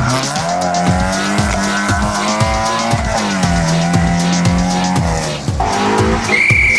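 Background music with a steady beat and held, stepping low notes; a high held note comes in near the end.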